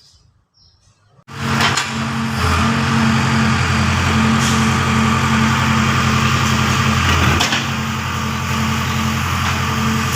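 A machine's motor or engine starts up abruptly about a second in and runs steadily and loudly with a low hum; faint bird chirps before it starts.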